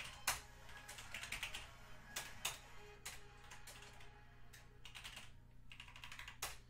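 Typing on a computer keyboard: irregular runs of quick keystrokes with short pauses between them.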